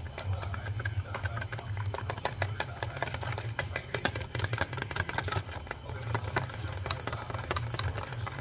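Wire balloon whisk beating a thick cheese sauce in a plastic tub: quick, irregular clicking and scraping of the wires against the tub sides. A steady low hum runs underneath.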